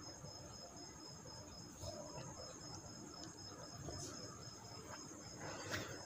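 Faint room tone with a steady, evenly pulsing high-pitched trill and a few soft ticks.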